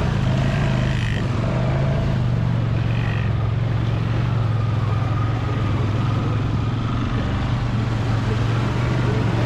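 Honda ATV engine running at a steady speed while riding, with one low engine note held nearly constant.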